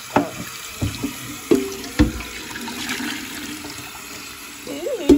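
Tap water running into a pot in the sink while burnt cheese is scraped off its bottom by hand, with a few sharp knocks against the pot in the first two seconds.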